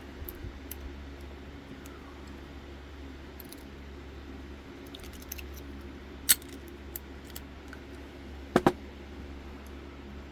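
Lock picks working a Master Lock padlock: faint metallic ticks and scrapes, a sharp click about six seconds in and a quick double click a couple of seconds later, over a steady low hum.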